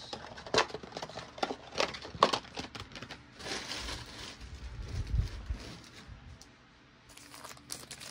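Foil wrappers of 2022 Panini Diamond Kings baseball card packs crinkling and crackling as they are handled, with many sharp crackles in the first few seconds. A low thud comes about five seconds in, then it goes nearly quiet briefly before the crinkling starts again near the end as the packs are picked up.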